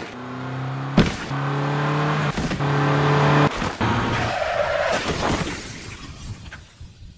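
Car crash sound effects: a car skidding with a loud impact about a second in and a steady pitched sound broken by further hits, then fading away over the last two seconds.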